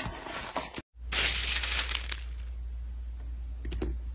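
Paper being torn: a sharp rip about a second in, then softer crackling with a few clicks, then a louder rip starting at the very end.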